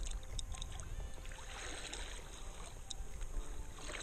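Sea water lapping and sloshing against a fishing kayak's hull, with scattered small clicks.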